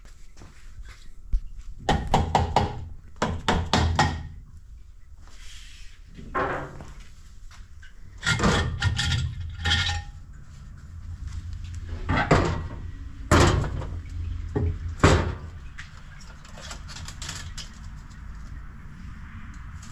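Metal clunks and clatter as a heavy aluminium torque plate is worked up off the head studs of an aluminium LS engine block and the head gasket is lifted off, coming in several bursts of knocks with short pauses between.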